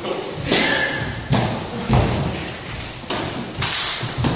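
Boxing gloves striking pads, gloves and arms as several pairs spar at once: several irregular thuds and slaps.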